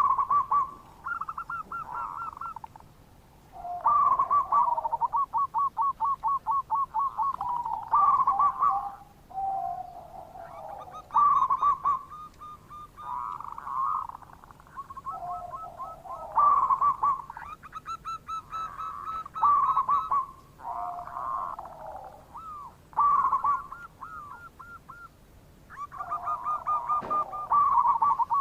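Zebra doves (perkutut) calling, used as a lure call: repeated phrases of fast, rattling staccato coo notes, a new phrase every few seconds, with two voices at different pitches sometimes overlapping.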